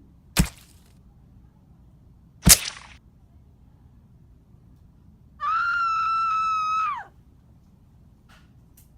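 Two sharp smacks, then one high-pitched scream, held steady for about a second and a half and dropping away at the end.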